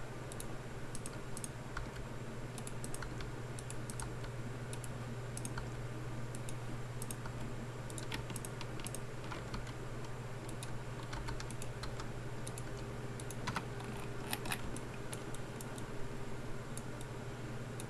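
Computer keyboard keys pressed in scattered single clicks and short bunches, over a steady low hum.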